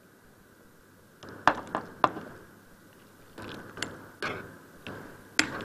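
A spoon knocking and scraping against a cooking pot during stirring: a handful of sharp, irregularly spaced clinks with short scraping stretches between, starting about a second in.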